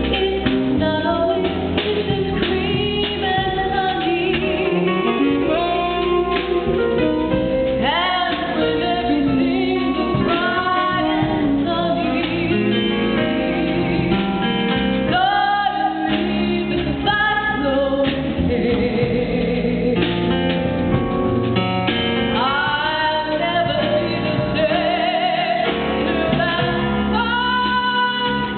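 A woman sings a blues medley live into a microphone over band accompaniment, her phrases sliding up into held notes.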